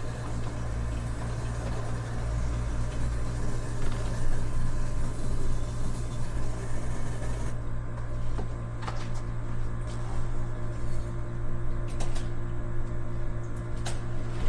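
Steady mechanical hum with a hiss over it; the hiss cuts off about halfway through, and a few light clicks and knocks follow.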